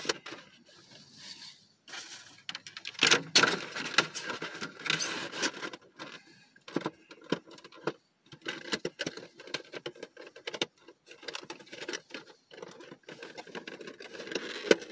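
Cardboard and plastic packaging of a Funko Pop vinyl box and its pin card being handled: irregular rustling and crinkling with sharp clicks, louder crackles about three and five seconds in.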